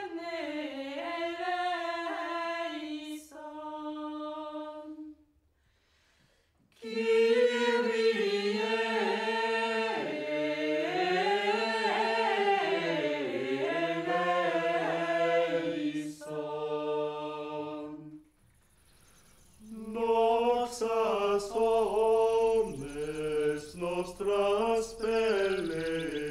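A small mixed choir of women's and men's voices singing Gregorian chant a cappella. The chant comes in three phrases, with short breaks about five seconds in and again around eighteen seconds in.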